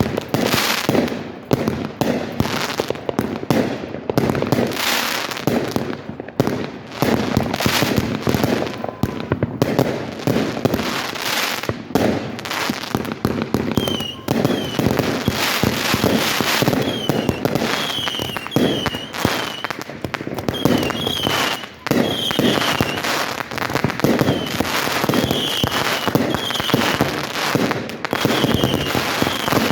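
Fireworks display going off in a dense, continuous barrage of booms and crackling reports. From about halfway on, short high chirps repeat among the bursts.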